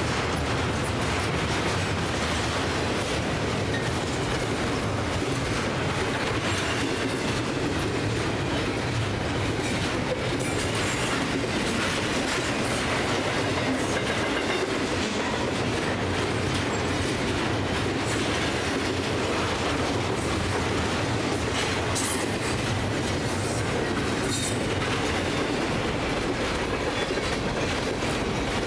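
Double-stack intermodal freight cars rolling past: a steady rumble of steel wheels on rail with clickety-clack over rail joints and a few faint wheel squeals.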